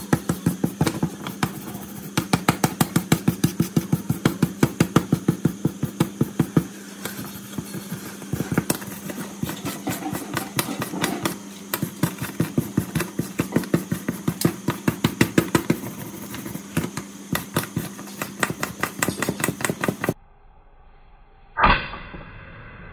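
Hand wire brush scrubbing rust and caked dirt off an old pipe wrench on a steel diamond-plate surface, in rapid back-and-forth strokes several a second over a steady low hum. The brushing stops suddenly about 20 seconds in, and a single knock follows near the end.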